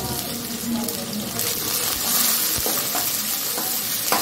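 Sliced onions, green chillies and ginger-garlic paste sizzling in hot oil in a metal kadai, a steady hiss. Near the end a spatula knocks in and starts stirring.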